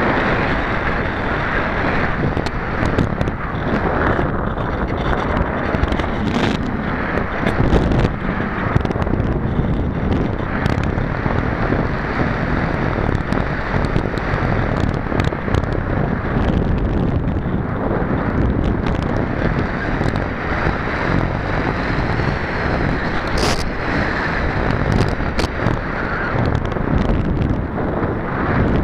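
Steady rush of airflow on the microphone of a camera riding on a Pulsar 3.2 m RC glider in gliding flight, with no motor sound.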